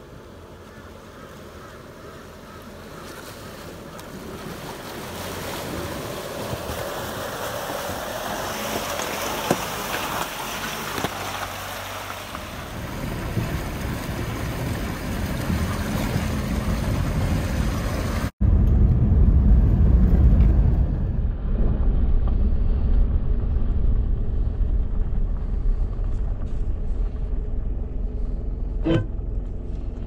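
Four-wheel drive vehicle driving through a river crossing: engine and rushing water noise building steadily. After a sudden break about two-thirds of the way in, a louder low rumble carries on, with a few clicks near the end.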